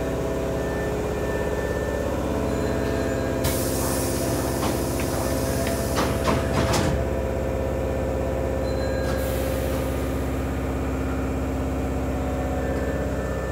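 Hankyu 5300-series electric train car with a steady hum of several held tones. About three and a half seconds in, a burst of air hiss begins with a run of clicks and knocks and lasts about three seconds. A second, shorter hiss comes about nine seconds in.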